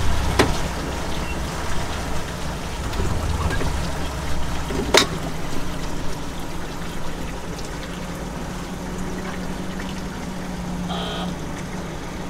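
Motorboat engine running at low speed with a low steady hum, and water splashing along the hull. Two sharp clicks, about half a second and five seconds in.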